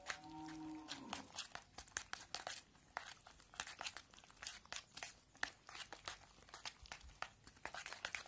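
A knife stirring and scraping through thick, wet gram-flour batter with sliced onion in a bowl, making irregular soft clicks and scrapes several times a second. A brief pitched sound holds and then falls away about a second in.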